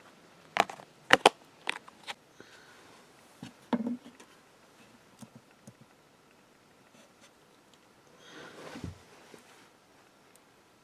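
Sharp clicks and knocks of a plastic tub of shredded tobacco being handled: four or five in the first two seconds and another about four seconds in. A short rustle follows near nine seconds.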